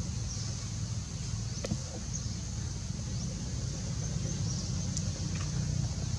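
Steady outdoor background noise: a low rumble under a constant high hiss, with a few faint clicks about two seconds in and near the end.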